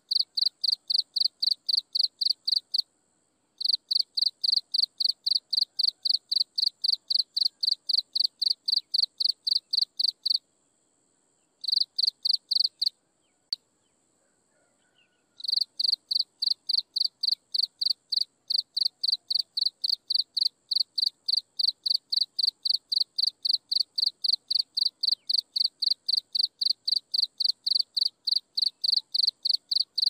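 A cricket chirping in a fast, even series of high, clear pulses, about three a second. It pauses briefly about three seconds in, stops for several seconds around the middle apart from one short burst, then resumes steadily.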